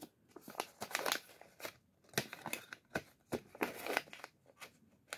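Rustling and crinkling of a small paper packet being handled and opened by hand, in short irregular bursts.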